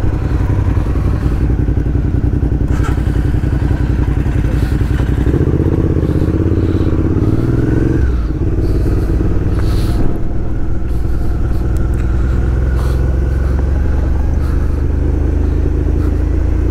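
Motorcycle engine running while being ridden. The revs climb about five seconds in, drop back a few seconds later, then hold steady.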